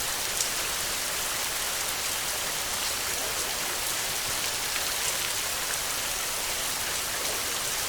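Steady rain: a dense, even hiss with scattered individual drops ticking through it.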